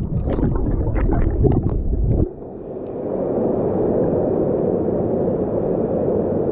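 Steady rushing water of a waterfall, an even roar without pitch. For about the first two seconds it is mixed with a low rumble and scattered knocks, which cut off suddenly.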